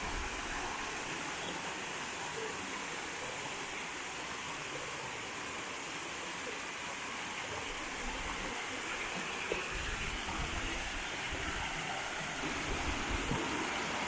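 Steady rush of a mountain stream tumbling over rocks and small cascades, with a few light knocks in the second half.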